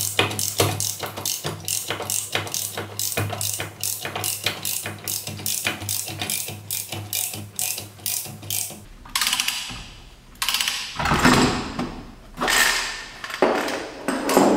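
Ratchet wrench clicking in even strokes, about three or four clicks a second, as it turns the forcing screw of a three-jaw puller drawing the rear wheel hub off its bearing. About nine seconds in the clicking stops and louder, irregular clanks and scrapes follow as the hub comes free.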